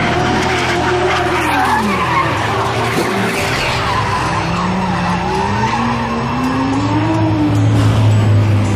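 Drift cars sliding sideways with their tyres squealing, engines revving, the pitch dropping a couple of seconds in and climbing again, with a deeper engine drone growing near the end.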